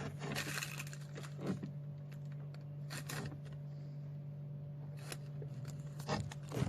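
Scattered scrapes, rustles and clicks of hands working on a twin-tub washing machine's spin-dryer tub and shaft seal, over a steady low hum.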